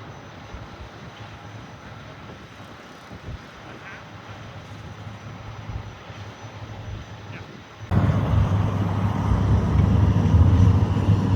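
A loaded log truck's engine running with a steady low drone. It cuts in suddenly about eight seconds in, after a stretch of faint, even background noise.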